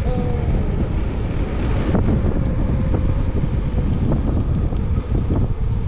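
Wind buffeting the microphone of a camera on a moving bicycle: a steady, loud, fluttering rumble.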